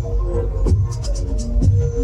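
Loud electronic dance music from a party sound system: a heavy bass line, held synth notes and a regular beat of sharp percussion hits.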